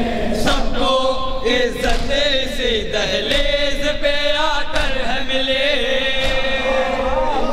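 Male voices chanting a noha, an Urdu mourning lament, in long held and bending lines, with sharp hand slaps on chests (matam) striking in time with it.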